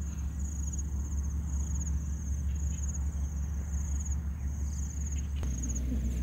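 An insect calling in short, high, pulsing trills about once a second, over a steady low rumble.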